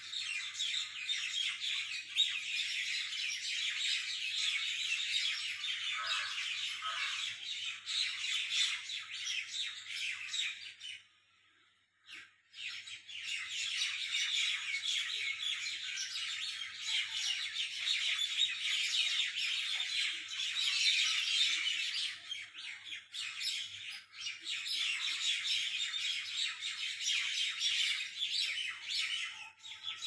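A dense chorus of many small birds chirping and tweeting at once, with squawks among the chirps. It breaks off for about a second and a half around eleven seconds in, then resumes just as thick.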